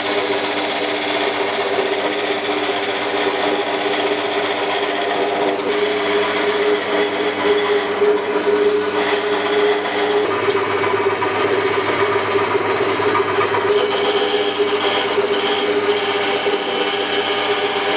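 Wood lathe motor running with a steady hum while a chisel cuts into the spinning wooden spindle, shavings coming off with a rough scraping noise that changes as the tool bites.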